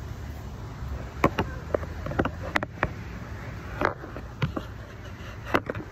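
Phone handling noise: a string of sharp knocks and taps as the phone is turned and set down on a slatted lounge chair, over a low steady rumble.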